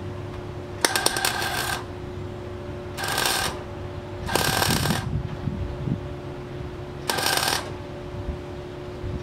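Welder laying short stitch welds on car-body sheet metal in an engine bay: four bursts of crackling, each half a second to a second long, about a second, three, four and a half and seven seconds in, over a steady hum.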